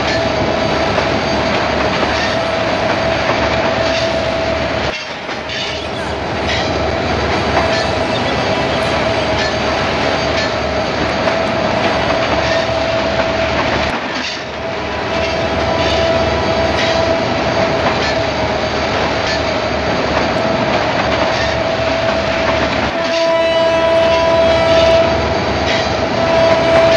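Diesel locomotive sound: the engine runs steadily with a continuous whine, breaking off abruptly twice. From about 23 seconds in, a multi-note train horn sounds over it.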